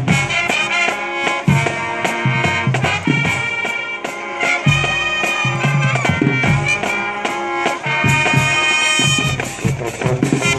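Marching band music: brass and wind instruments playing sustained chords that change every second or two, over a low beat.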